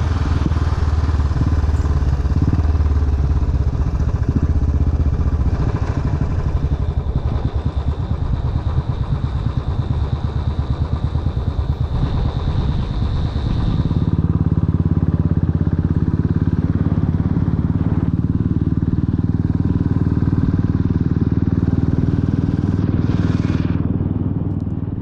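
Motorcycle engine running while riding, a loud steady low drone; its note shifts about halfway through.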